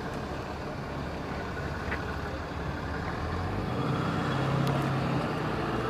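A road vehicle's engine running over steady traffic noise, swelling louder for a couple of seconds past the middle before easing off.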